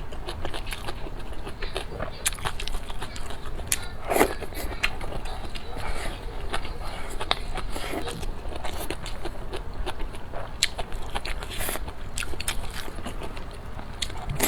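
Close-miked eating: biting and chewing food, with many sharp mouth clicks and crackles throughout.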